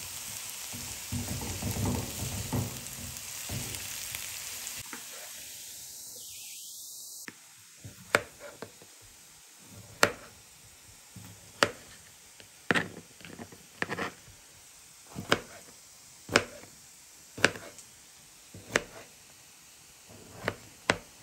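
Onion frying in sunflower oil in a skillet, sizzling steadily. About seven seconds in, the sizzle drops abruptly to a faint hiss. From then on a stirring utensil clicks and taps against the pan roughly once a second.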